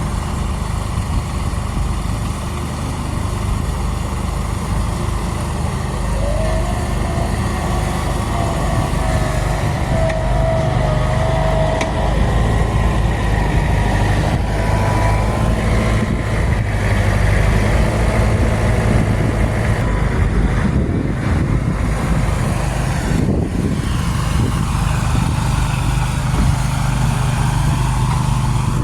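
Farm machinery engine running steadily as the manure spreader is backed into place. Partway through, a thin whine rises and wavers for several seconds over the engine.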